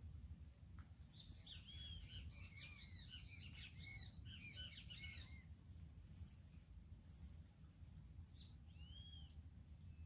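Faint birdsong: a quick flurry of short, arching chirps in the first half, then a few scattered single calls, over a low steady rumble.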